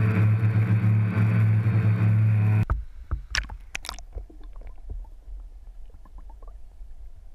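DJI Phantom quadcopter's rotors humming at a steady pitch, cutting off abruptly a little under three seconds in. After that, with the camera underwater in the river, only muffled scattered clicks, knocks and a low rumble are heard.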